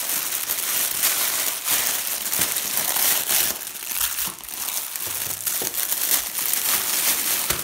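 Clear plastic packaging film crinkling and crackling as hands pull and crumple it off a boxed toy, a continuous rustle with many irregular sharp crackles.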